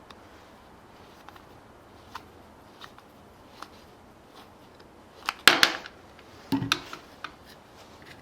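Small carburetor parts being handled on a hard work surface: a few light clicks, then two short bursts of louder clatter about five and six and a half seconds in.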